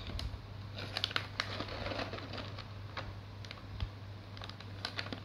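Faint scattered light taps and clicks, a few small clusters, over a low steady hum.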